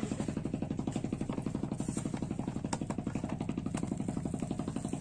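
A small engine running steadily at idle with a fast, even pulse. A couple of light clicks sound over it.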